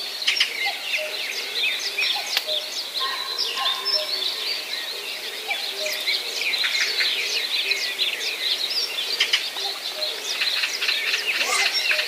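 Many birds chirping and calling at once, with short, quick notes overlapping throughout.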